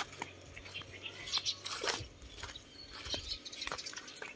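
Faint, scattered crunching of footsteps on dry leaves, grass and gravel, with an occasional bird chirp.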